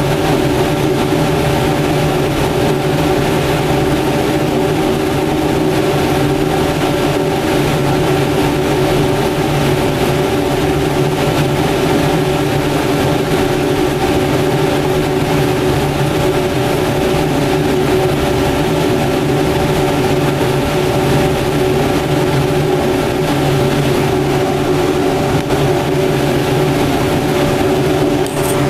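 Cremation furnace's burner and blower running steadily: an even rush of flame and air with a constant low hum.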